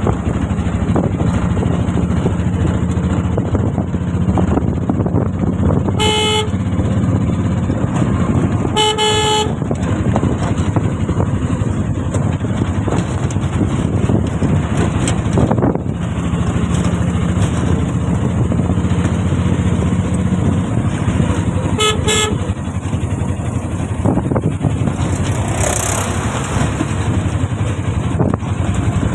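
Road traffic with a motor vehicle engine running under steady road noise; a horn honks about six seconds in, again a little longer around nine seconds, and twice in quick succession a little past the twenty-second mark.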